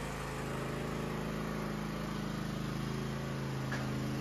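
John Deere riding lawn tractor's engine running at a steady speed as the tractor drives forward, an even, unchanging hum.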